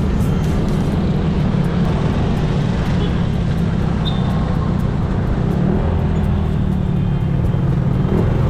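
Motorcycle running along the road: steady engine and road noise with no breaks.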